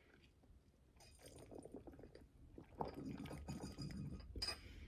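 Drink being sucked through a straw from a glass jar cup: faint slurping that starts about a second in and grows louder near the end as the last of the drink is drawn up.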